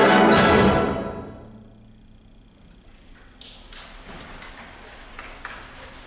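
A concert wind band holds a loud full chord that cuts off about a second in, its sound ringing away in the hall's reverberation over the next second. Then there is only quiet room noise with a few faint clicks.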